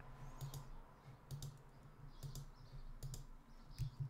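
Faint clicking at a computer, a short click about once a second, several of them in quick pairs, over a low steady hum.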